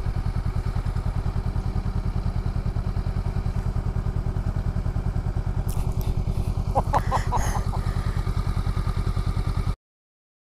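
Honda Grom 125cc motorcycle engine idling steadily with an even, fast pulse. A few short high chirps come through around seven seconds in. The sound cuts off suddenly just before the end.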